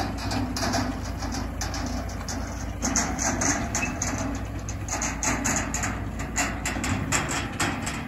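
John Deere 6220 tractor's diesel engine running steadily at low revs, with irregular sharp knocks and clatter over it as the gooseneck trailer is set down on its jack stands.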